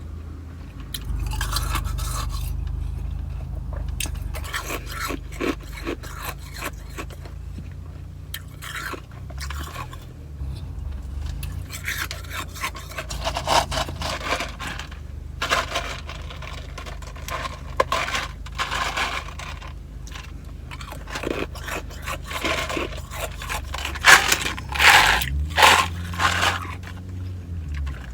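Ice being crunched and chewed in the mouth: irregular runs of crisp cracking crunches, loudest near the end, over a steady low hum.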